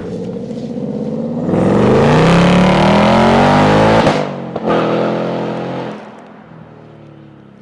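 Ford Mustang GT's 5.0 Coyote V8 through its active exhaust accelerating hard, the engine note climbing in pitch for about two and a half seconds. It breaks off sharply about four seconds in, comes back briefly, then fades away.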